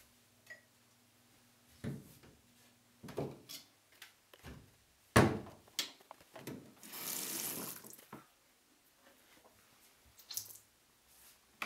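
A bathroom sink tap runs for about a second, among a series of knocks and clicks from things being handled at the sink; the sharpest knock comes a little before the water.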